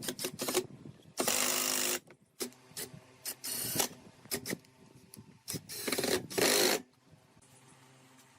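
Scraping strokes on wood, irregular and of varying length, the longest under a second, with shorter scrapes and clicks between; they stop about seven seconds in.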